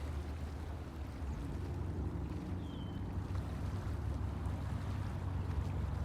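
Steady low outdoor rumble, with one faint, short falling chirp from a bird about two and a half seconds in.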